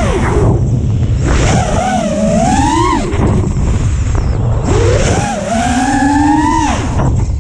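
5-inch FPV quad's BrotherHobby 2206 2450kv brushless motors on Gemfan Flash 5-inch props whining, the pitch rising and falling with the throttle in two long punches that each drop away at the end, over a steady low rumble.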